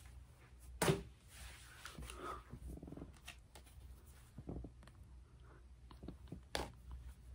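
Quiet handling of album packaging and paper inserts: soft rustling, with a sharp tap about a second in and another near the end.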